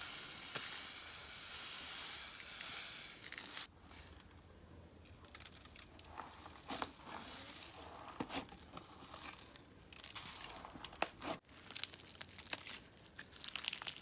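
Slime being pressed and stretched by hand, with faint crackling and small pops.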